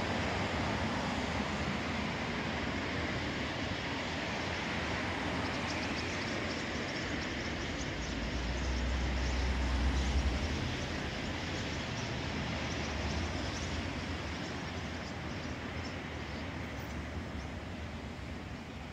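Steady wash of outdoor noise like nearby traffic, with faint high chirps from a huge flock of birds wheeling overhead. A low rumble swells about eight seconds in and fades again a couple of seconds later.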